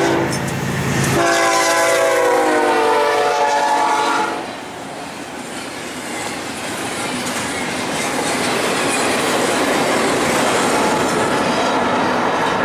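Air horn of a BNSF GE Evolution-series freight locomotive sounding for a grade crossing: a blast that cuts off just after the start, then one long blast whose pitch drops as the locomotive passes. After it comes a steady rushing noise as the double-stack container cars roll past on the rails.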